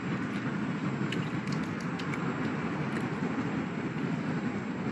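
Steady wind noise buffeting the microphone, with a few faint clicks.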